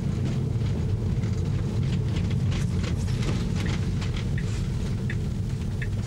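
Steady low road and tyre rumble heard inside the cabin of a Tesla electric car driving along a street.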